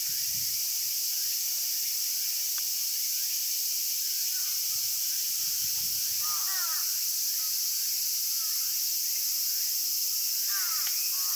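Steady, loud high-pitched drone of a summer cicada chorus. A couple of short animal calls cut in about two-thirds of the way through and again near the end.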